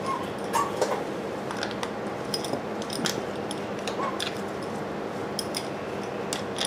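Small metal engine parts being handled: scattered light clicks and clinks at irregular times over a steady low hum.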